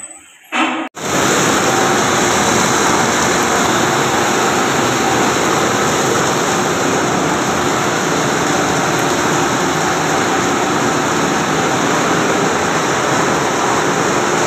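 Main fire water pump running: a loud, steady rush of pump and water noise that sets in abruptly about a second in and holds unchanged.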